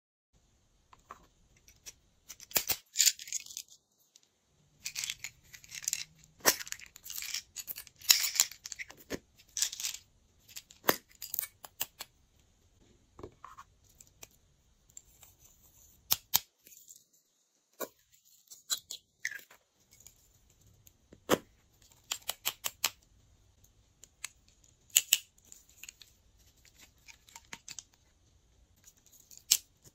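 Hands handling plastic slime supplies over glass trays: tubes of small beads uncapped and tipped out, the beads rattling into the dish, with crinkly rustles. A string of sharp clicks and crackles, densest in the first third, with short pauses between.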